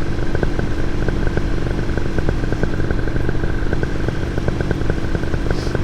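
Paramotor engine and propeller running steadily in flight, an even engine drone with a fast regular ticking.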